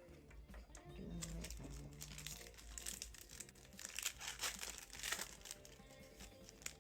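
Trading-card pack's foil wrapper being torn open and crinkled by hand, a dense crackle that is loudest through the middle few seconds.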